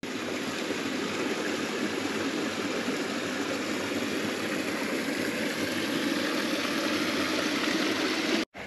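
A stream running, a steady rush of water that cuts off suddenly near the end.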